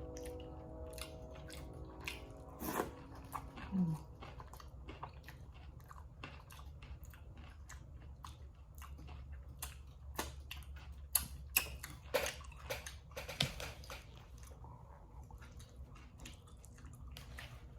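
Close-miked chewing and wet mouth clicks from eating sausage, rice and cucumber, with some crunchier bites, most of them about 11 to 14 seconds in. A steady hum runs for the first few seconds.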